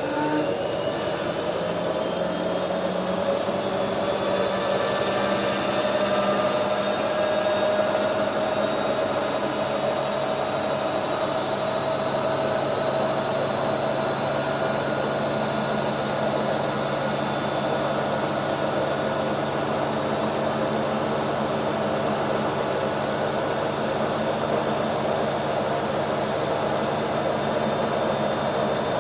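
Automatic washing machine spinning: the motor's whine rises in pitch as the drum speeds up over the first few seconds, then holds a steady high-speed whine over a rushing hum.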